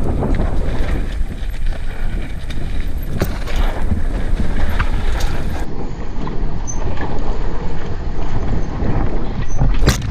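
Mountain bike descending a loose, dusty dirt trail. Wind buffets the microphone over a rumble of tyres on dirt, with scattered sharp knocks and rattles as the bike hits bumps.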